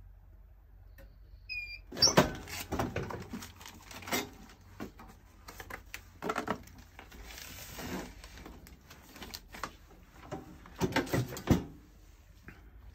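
GULLIVER-L KNIFE manual tray sealer being worked by hand: the lid is lifted with clunks and rattles about two seconds in, a tray is handled beneath it, and the lid is pulled down and clamped with a quick run of heavy clicks about eleven seconds in. Short beeps sound about a second and a half in and again near the end.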